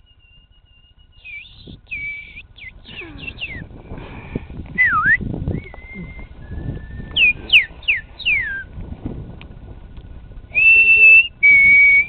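Men whistling bird-call imitations, held high notes in turn. Many short whistled notes, some sliding up or down in pitch, and two loud steady high whistles near the end.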